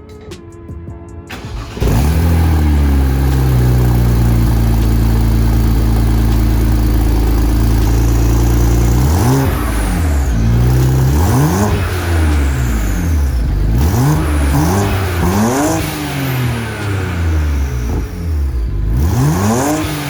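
BMW 335i twin-turbo inline-six starting with a sudden loud catch, settling into a steady idle through catless downpipes and a newly fitted VRSF exhaust. From about halfway, the engine is blipped several times in quick revs that rise and fall back to idle.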